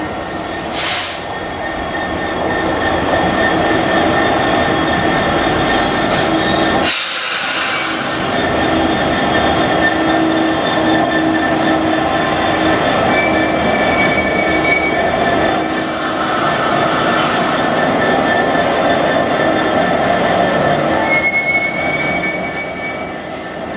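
GBRf Class 66 diesel locomotive, with its EMD two-stroke V12 engine, passing light engine with no wagons behind it. The engine runs with a steady drone, and brief high-pitched squeals come from the wheels a few times in the second half.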